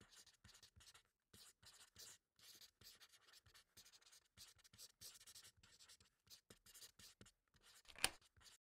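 Faint pencil scratching on paper: a long run of short, irregular writing strokes, with one sharper tick about eight seconds in.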